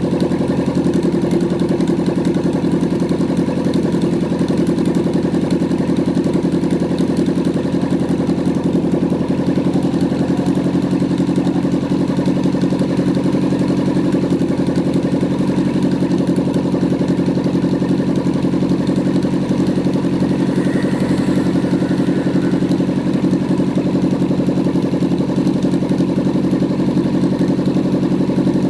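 Engine of a homemade helicopter running steadily at constant speed during a test of its drive assemblies under load.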